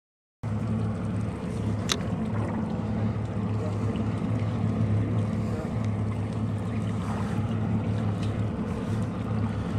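Motorboat engine running with a steady low hum under wind and water noise, with a single sharp click about two seconds in.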